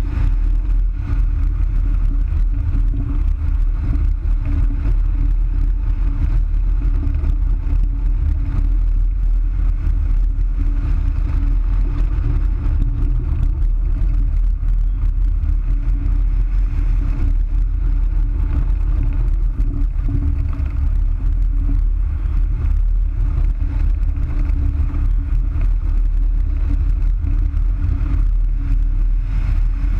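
Loud, steady wind rushing over a hang glider's wing-mounted camera in flight, a low rumble with a steady hum running under it.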